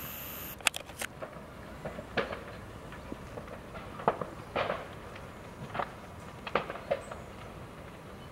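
A scattering of short, sharp pops and knocks at irregular intervals over a low steady background, the loudest about four seconds in.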